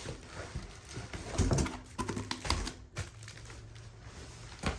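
Plastic-wrapped packs of adult diapers being handled and lifted out of a cardboard box: irregular rustling, crinkling and knocks, the loudest about one and a half and two and a half seconds in.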